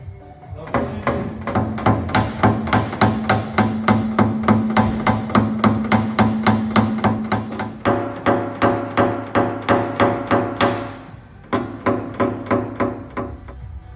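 Hammer tapping rapidly on a car door's sheet-steel panel, about four or five blows a second, with the metal ringing under the blows, as the dents are worked out before painting. The tapping pauses briefly about eleven seconds in, then resumes.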